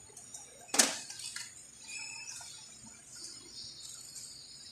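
A sharp metallic click about a second in, then a few faint clinks and handling noises: small metal parts or tools being handled around an open engine.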